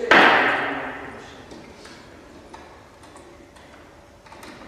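A loud knock on wood that rings out and fades over about a second, followed by a few light taps and clicks, from hand-tool work on a wooden boat's keel and frame.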